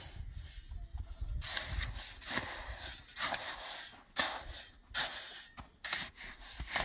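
Long-handled metal shovel scraping and pushing through fine gravel, in a series of rasping strokes roughly one a second.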